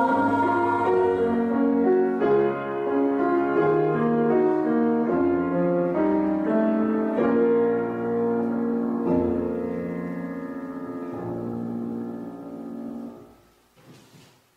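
A girls' choir releases its last held note, then a piano plays the song's closing chords and held notes, fading away about thirteen seconds in. A few faint knocks follow.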